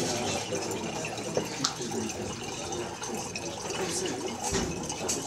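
Liquid trickling in thin streams from an automated bottling machine's nozzles into glass bottles, a steady watery hiss as the bottles fill. Two light clicks come about one and a half seconds in.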